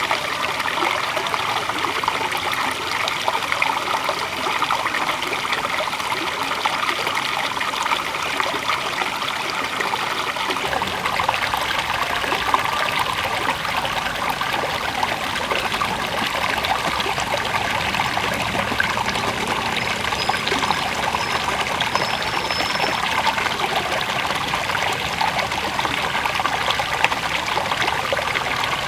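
River water flowing and trickling steadily over its bed; the character of the flow shifts slightly about ten seconds in.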